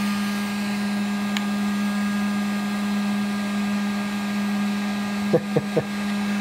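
Harbor Freight heat gun running steadily: a constant fan-motor drone with a strong hum and airy hiss. A few brief voice sounds come about five seconds in.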